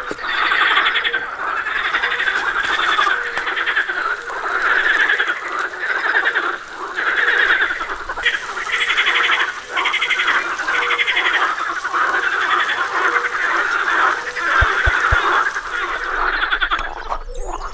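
A chorus of frogs calling: overlapping fast, pulsed trills, each lasting about half a second to a second, repeating without a break. A few low thumps come near the end.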